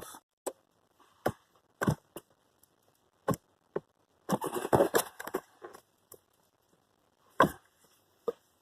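Sharp plastic clicks and knocks as hands work at the blower motor's wiring connector, trying to pry it off. Single clicks come every second or so, with a quick run of rattling clicks about halfway through.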